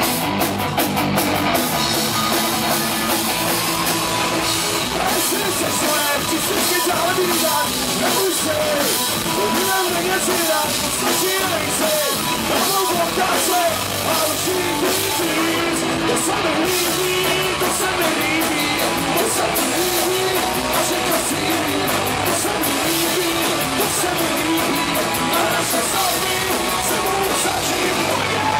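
Punk rock band playing live: electric guitars, bass guitar and drum kit. A male singer comes in on vocals about six seconds in.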